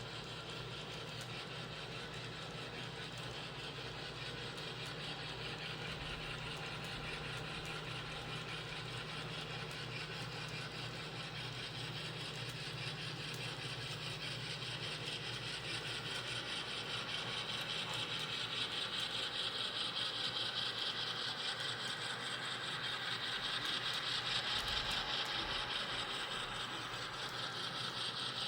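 N scale model train running along the track: the motors of a Kato SD70ACe on the point and a ScaleTrains C44 pushing at the rear, a steady whirring with fine rapid clicking from the wheels. It gets louder in the second half.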